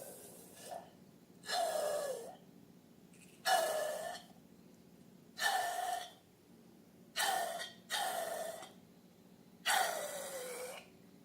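Air squealing and hissing out of the neck of a long modelling balloon in six short bursts, each squeal dropping in pitch as it ends.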